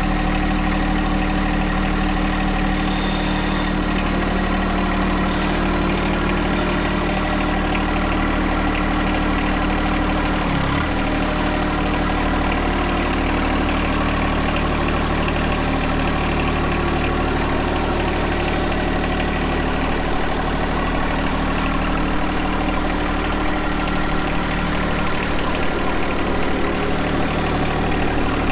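John Deere 1025R compact tractor's three-cylinder diesel engine running steadily while it pushes dirt with its front blade. The engine note dips briefly about ten seconds in, then recovers.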